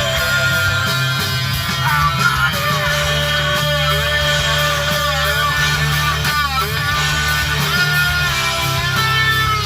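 Rock music with guitar and a singing voice, playing steadily.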